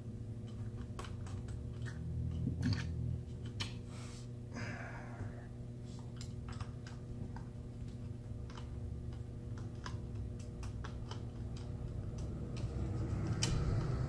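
Small screwdriver backing out the tiny screws of a laptop's hard-drive bracket: scattered light clicks and ticks of the bit and screws, with a short scrape about four and a half seconds in, over a steady low hum.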